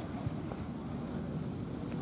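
Steady, uneven low rumble of wind buffeting the microphone, with a single short knock about a quarter second in.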